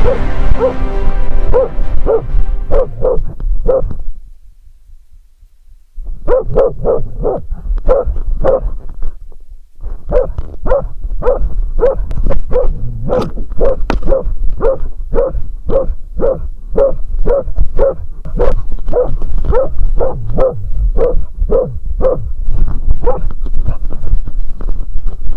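Norwegian elkhound (grey elkhound) barking at a brown bear at very close range, about two barks a second, with a break of about two seconds a few seconds in. This is the stand bark (ståndskall) of a bear dog holding the bear at bay.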